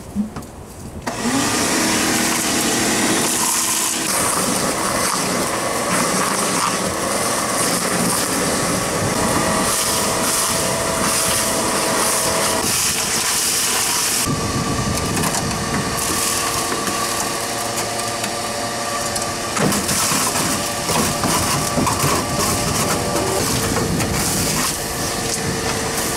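A motor-driven power tool starts about a second in and runs continuously, its motor pitch shifting now and then as it works.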